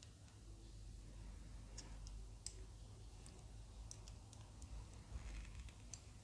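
Near silence with faint, scattered small clicks from a small screwdriver and screws being worked into a plastic-and-metal model part.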